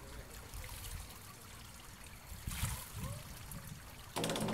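Faint trickling of pool water, with a couple of soft low thumps from the springboard about two and a half and three seconds in. Near the end a sudden loud burst of noise starts.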